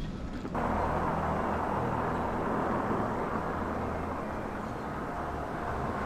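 Steady snowstorm street ambience: an even rush of wind over a low vehicle hum, starting abruptly about half a second in.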